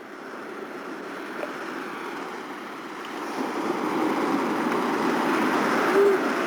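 Ocean surf breaking on a beach, a steady rushing that grows louder about halfway through, with a short faint tone near the end.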